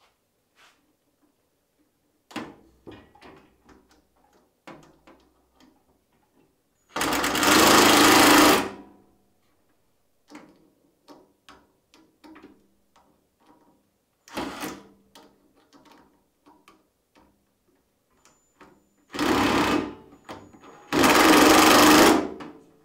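Cordless drill driving screws through a wooden cleat into a steel cabinet: three runs of the motor lasting a second or two each, one about seven seconds in and two close together near the end. Short knocks and clatter of the wood strip and tool handling come between the runs.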